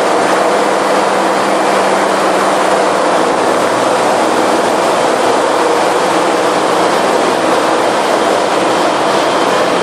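Ship's engine room machinery running: a loud, steady din with a faint hum underneath, unchanged throughout.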